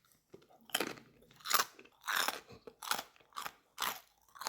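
Crispy roasted pork knuckle skin (crackling) crunching as it is chewed: about seven crisp crunches with short pauses between them.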